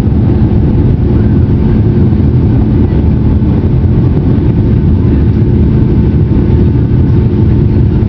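Jet airliner engines at takeoff/climb power heard from inside the passenger cabin: a loud, steady rumble with a constant hum on top.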